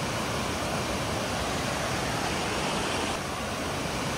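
River water rushing over rocky rapids: a steady, even rush with no break.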